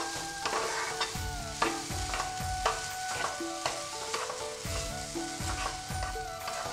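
Spatula stirring and scraping carrot paste as it fries in ghee in a nonstick frying pan, with a steady sizzle and a scraping stroke every second or so.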